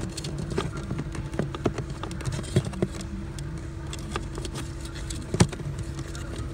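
Light plastic taps and clicks as the cabin pollen filter cover is worked into place behind the glove box, with one sharper knock about five seconds in, over a steady low workshop hum.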